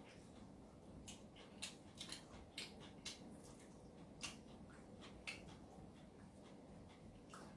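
Faint, irregular small clicks and ticks, about a dozen over several seconds, from two people eating bread at a tray in a near-quiet room.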